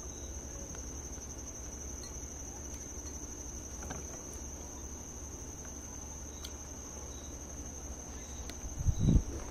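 A steady, high-pitched chirring of insects, like a cricket chorus, with a few faint clicks. About nine seconds in there is a brief, louder low sound.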